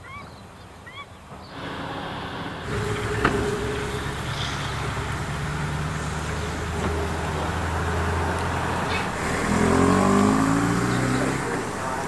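Motor vehicle engine running steadily, with a single sharp knock about three seconds in; about ten seconds in the engine note rises as a vehicle accelerates.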